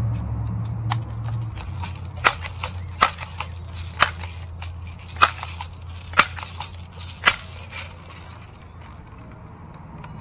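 Crosman 760 Pumpmaster air rifle being worked between shots: six sharp clicks about a second apart, over a steady low rumble.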